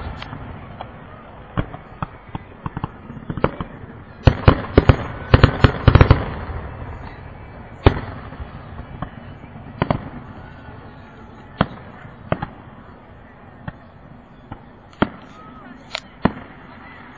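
Fireworks display shells bursting in a string of sharp bangs, with a dense flurry of bangs about four to six seconds in, then single bangs every second or two.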